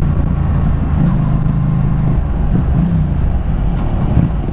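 Yamaha motorcycle engine running as the bike rides, a steady drone with wind rushing over the helmet microphone; the engine note drops about two seconds in and picks up again near three seconds.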